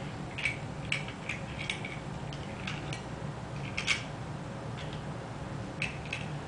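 Small toy cars clicking lightly against each other as they are picked up and set down, in scattered single clicks, the loudest about four seconds in, over a steady low hum.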